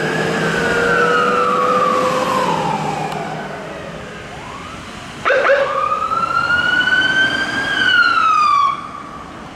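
Emergency vehicle sirens wailing: two sirens overlap and fade over the first few seconds. About five seconds in, another siren cuts in with a few quick chirps, then rises slowly and falls again in one long wail.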